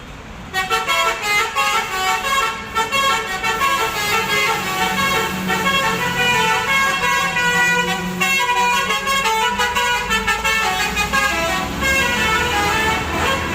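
Telolet horn on an ALS intercity bus playing a fast multi-note tune, the horns switching quickly from note to note, starting suddenly about half a second in.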